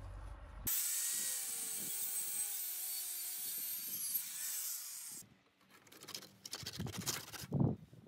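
A loud hissing, scraping noise with faint falling tones for about four and a half seconds, then a quieter run of wooden knocks and clatter as a log is handled on a wooden sawhorse, with one loud knock near the end.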